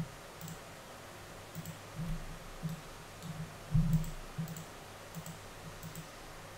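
Computer mouse clicking about ten times at an uneven pace, the loudest about 2 s and about 4 s in, as faces are shift-click selected one after another.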